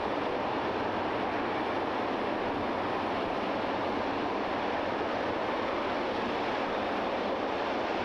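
RS-25 liquid-hydrogen rocket engine firing on a static test stand: a steady, unbroken rushing noise with no change in level or pitch.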